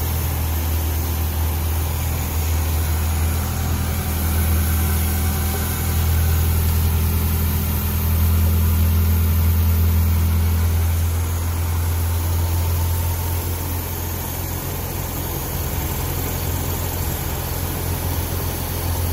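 Datsun A12 1.2-litre four-cylinder engine idling steadily on a freshly installed Holley/Weber 5200 two-barrel carburettor, at about 1200 rpm, its idle rising a little to near 1300 rpm and settling back.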